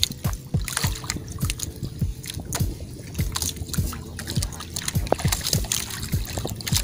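Background music with a steady beat and held tones, over water sloshing and splashing against the hull of a small wooden outrigger boat.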